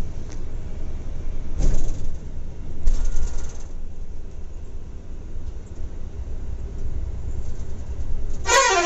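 Volvo B11R coach on the move, heard from inside the cab: a steady low engine and road rumble with a couple of brief bumps. Near the end comes a loud, wavering vehicle horn blast.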